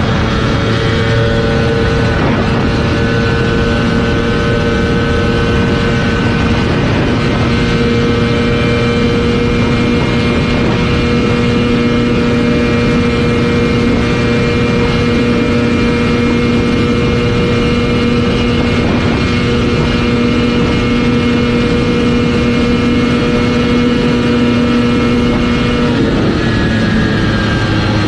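Ducati superbike engine held at full throttle in sixth gear at over 300 km/h, a loud steady high-pitched drone under heavy wind rush. Near the end the engine note falls away as the throttle closes and the bike slows.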